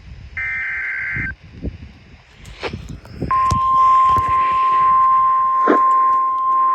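An Emergency Alert System SAME header data burst, a one-second warble of high tones, about half a second in. From about three seconds in comes the steady single-pitch 1050 Hz NOAA Weather Radio warning alarm tone, which announces a new warning. A few sharp clicks break through, one loud one near the end.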